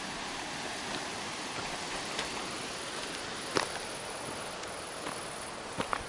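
A few footsteps crunching on a gravel track, with sharp taps about a third of the way in and near the end, over a steady outdoor hiss.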